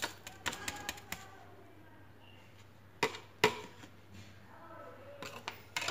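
Sharp clicks and knocks of a plastic spice tray and spoon tapping as ground spices are tipped into a mixing bowl. There is a cluster of light taps near the start, two louder knocks around three seconds in, and a few more near the end.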